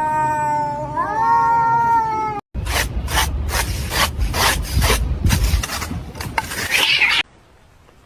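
A cat's long, drawn-out meow, held on one pitch with bends up and down, cut off abruptly about two and a half seconds in. Then several seconds of irregular rasping, scuffling strokes follow, which stop suddenly about seven seconds in.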